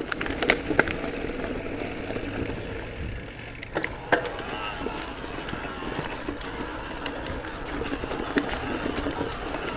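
Giant Trance E+ Pro 2 electric mountain bike rolling along a dirt singletrack: a steady rumble of tyres on dirt and the bike rattling, with sharp clicks and knocks over bumps several times.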